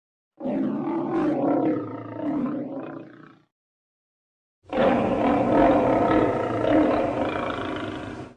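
Lion roaring, twice: a roar of about three seconds, a pause of dead silence, then a longer roar that cuts off sharply.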